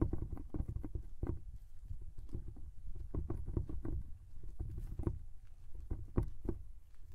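Footsteps on dry gravelly ground with irregular knocks and crunches, over a steady low rumble of wind on the microphone.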